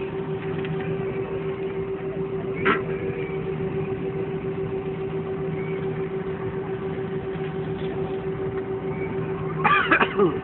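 Steady hum of an airliner cabin before takeoff: engine and air-system noise with a steady low tone and a higher one over an even rush. A brief sharp sound comes about two and a half seconds in, and a louder short sound with rising and falling pitch comes near the end.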